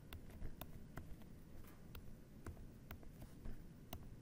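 Faint, irregular clicks and taps of a stylus tip on a tablet screen while drawing, about two or three a second, over a low steady hum.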